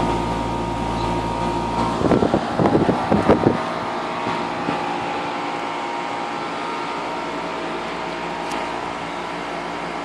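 Two-stroke string trimmer (weed eater) engine running steadily in the background. A burst of clattering knocks comes about two seconds in, after which the deep rumble drops away.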